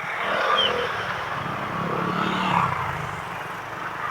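Motor vehicle engine running steadily, with street noise around it and a short high chirp about half a second in.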